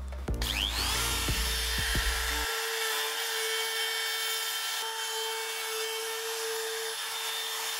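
Compact trim router switched on about a third of a second in, its motor whining up to speed, then running steadily at full speed while it cuts into end-grain hardwood along a template.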